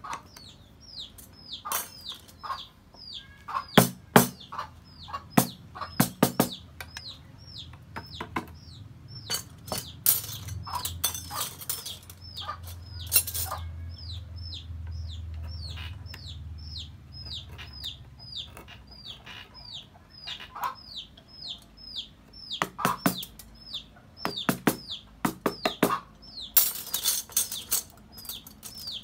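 A bird peeping steadily in short, high, falling notes, about two or three a second, over sharp knocks and cuts of a chisel and gouge working hardwood.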